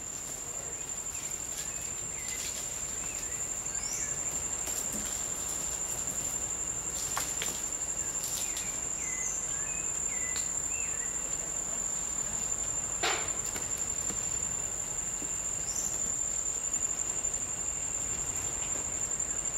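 An insect's steady high-pitched trill runs without a break. Scattered short chirps sound over it, with two or three sharp clicks.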